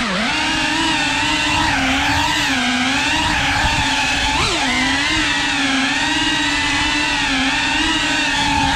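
FPV quadcopter's brushless motors and propellers whining, picked up close by the camera on board. The pitch rises and dips with the throttle, with a quick upward jump about halfway through.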